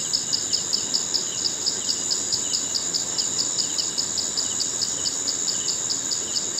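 Insects trilling in a steady high chorus that pulses about six times a second, with fainter short chirps at a lower pitch now and then.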